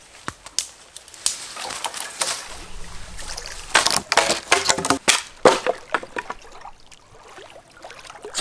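Dry dead wood being broken and chopped for firewood: a run of sharp cracks and knocks, thickest and loudest about four to five and a half seconds in.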